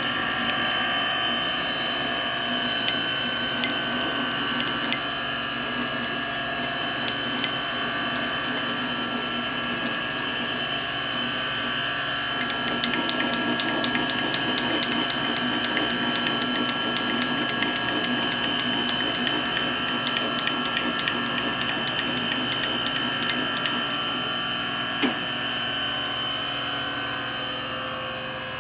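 Taft Pierce 1 TP reciprocating surface grinder running under power: a steady motor whine and hum. From about halfway through, fast light ticking is added, and there is a single knock near the end.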